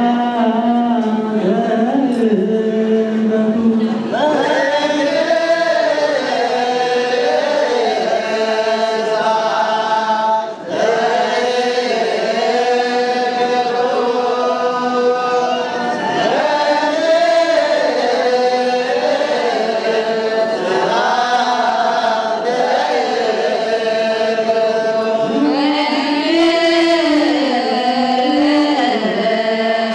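Orthodox Tewahedo church choir of men and women chanting a Tigrinya hymn together in slow, sustained sung phrases, with a brief break about ten seconds in.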